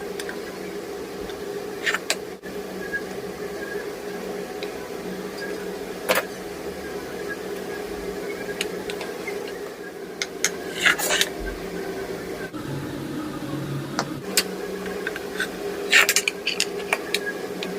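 A steady low mechanical hum, with sharp clicks and knocks every few seconds and a quick cluster of them near the end.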